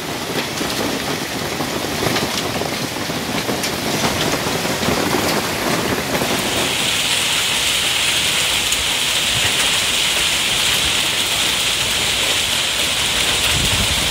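Hailstorm pelting a garden: a dense, steady patter of many small hailstone and rain impacts. About six and a half seconds in it changes to a brighter, hissier downpour.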